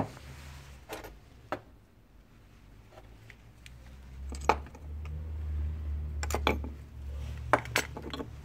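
A metal spinning-reel spool and scrap-wood blocks being handled and set down on a wooden tabletop: scattered sharp clinks and knocks, some in quick pairs, over a low rumble through the middle stretch.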